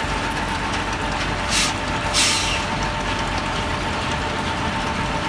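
Scania truck's diesel engine running steadily with a steady whine, and two short hisses of compressed air, the second longer, about one and a half and two seconds in.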